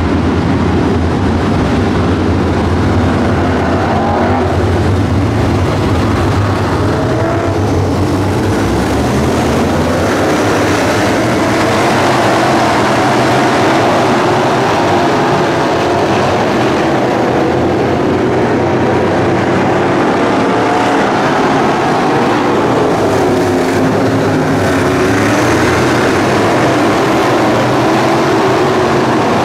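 Sportsman-class dirt-track race cars running laps around the oval, their engines a continuous loud drone with pitches rising and falling as cars pass. A deep low rumble is strong at first and eases about nine seconds in.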